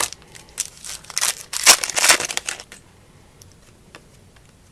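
Trading cards being handled and slid one behind another, making about two seconds of scratchy rustling that then gives way to a few faint clicks.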